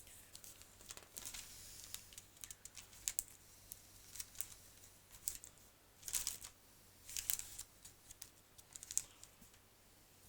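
Faint, irregular clicks and rustles of small handling sounds, a few close together, spread unevenly across the pause, over a low steady hum.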